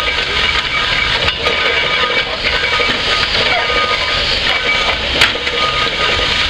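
1916 Erie Type B steam shovel working, with a steady loud hiss of escaping steam and a couple of sharp knocks from the machine as its dipper digs.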